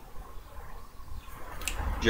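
Faint handling of trading cards as they are flipped through, with a small sharp click about one and a half seconds in, over a low steady hum.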